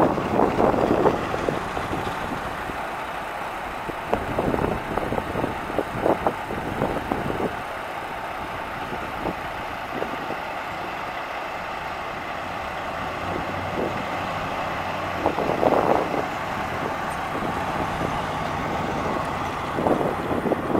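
1979 Chevrolet C10 pickup's 350 V8 running as the truck drives past at low speed, with engine and road noise swelling louder several times.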